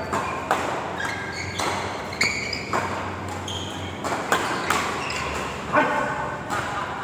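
Badminton rackets striking shuttlecocks in sharp, irregular clicks, mixed with short high squeaks of court shoes on the synthetic court mat during doubles play.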